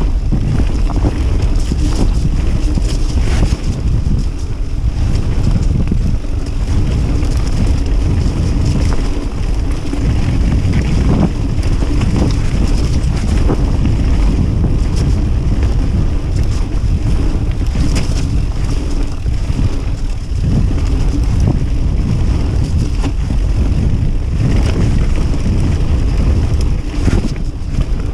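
Wind buffeting the action camera's microphone over the rumble of a Kona Process 153 DL mountain bike's tyres on a dirt trail at speed, with scattered rattles and clicks from the bike.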